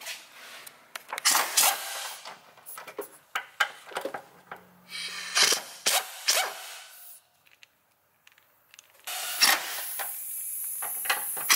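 Metal clicks and scrapes of a hand socket driver on the strut-tower nuts as a front coilover's top mount is bolted in. A steady hiss starts about nine seconds in.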